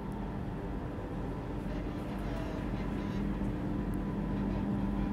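Steady low hum and rumble of a large cruise ship's machinery while it manoeuvres slowly alongside a pier, growing slightly louder toward the end.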